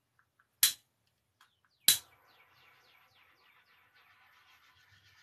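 Small handheld butane torch clicked twice on its igniter, lighting on the second click, then a faint steady flame hiss with fine crackling as it is passed over wet acrylic pour paint to pop surface bubbles.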